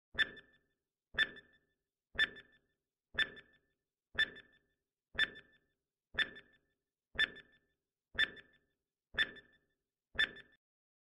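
Countdown timer sound effect: eleven short, sharp ticks, one every second, with silence between.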